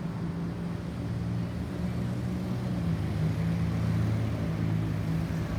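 A road vehicle's engine running with a steady low hum. No siren is sounding.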